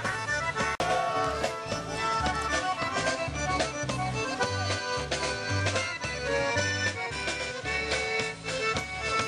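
Live band playing polka-style music, with an accordion melody over a bass line that alternates between two low notes.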